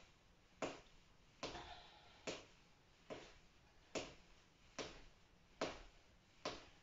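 Footsteps of someone marching in place with raised knees, sneakers landing on a foam floor mat: faint, even thuds a little more than one a second.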